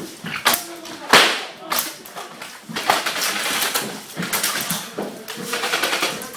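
Irregular sharp cracks and knocks of an indoor airsoft fight, shots and hits mixed with scuffling movement. The loudest crack comes about a second in.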